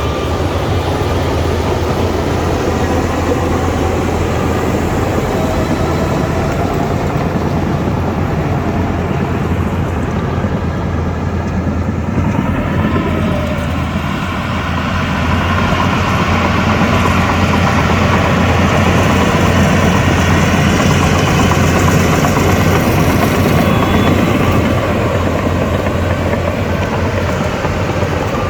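Shantui DH17 crawler bulldozer's diesel engine running steadily with a deep drone while pushing dirt. It grows louder past halfway for several seconds, then eases.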